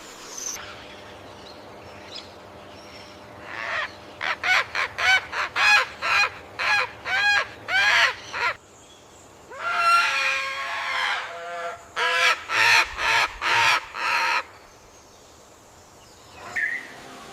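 A large bird giving harsh, honking calls: a rapid run of about ten calls starting about four seconds in, then one longer call, then another quick run.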